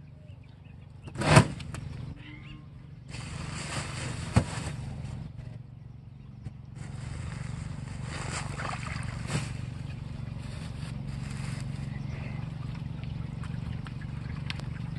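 Sandbags handled against a metal irrigation check plate: a loud thump about a second and a half in, then scraping and shuffling, with a steady hiss through the second half.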